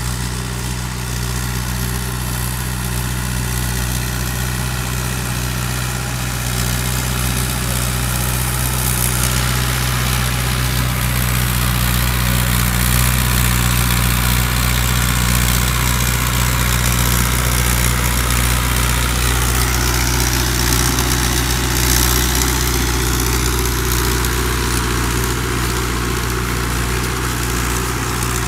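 Engine of a rice-field puddling tractor with cage wheels running steadily as it works through a flooded paddy. It grows a little louder toward the middle.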